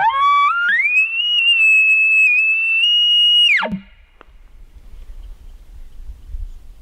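Bull elk bugling: a low note sweeping up in steps into a high, clear whistle held about three seconds, then dropping sharply into a short low grunt.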